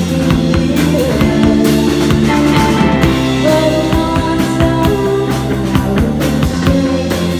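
Rock band playing live: Stratocaster-style electric guitar and drum kit, with a woman singing.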